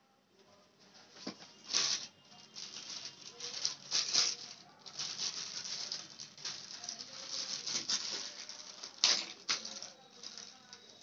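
Clear plastic packaging bag crinkling and rustling in irregular bursts as it is handled and pulled open, with a few sharper crackles about 2, 4 and 9 seconds in.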